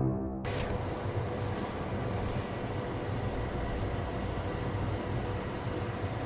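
The tail of music cuts off in the first half second. Then a steady low rumbling background noise runs with a faint constant hum.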